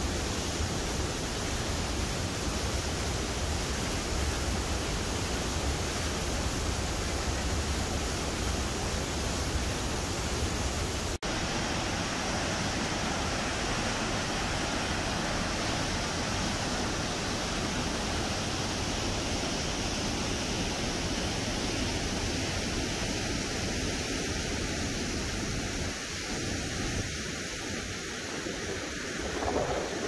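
Rhine Falls: a steady rushing of heavy falling and churning river water, with a deep low rumble underneath at first. About eleven seconds in the sound breaks off for an instant and carries on with less rumble.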